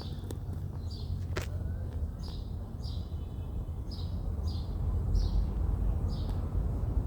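A bird repeating a short chirp about twice a second, over the steady low rumble of a running motor that grows louder about five seconds in.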